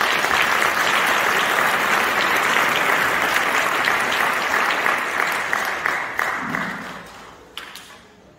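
Audience applauding, steady for about six seconds and then dying away.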